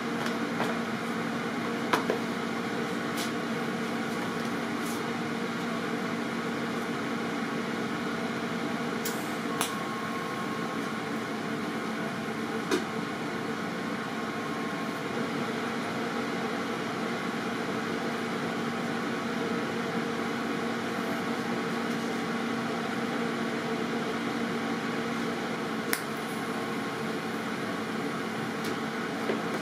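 Steady electrical hum of a TIG welding setup at work on cast aluminum, with a few sharp clicks.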